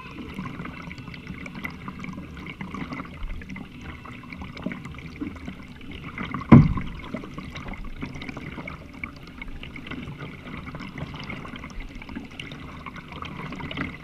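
Water trickling and lapping around a kayak, a steady wash with small ticks. A single sharp knock about six and a half seconds in is the loudest sound.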